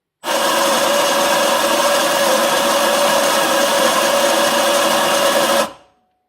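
Anfim Super Caimano espresso grinder's motor grinding coffee into a portafilter. It runs steadily for about five and a half seconds, then cuts off and winds down briefly.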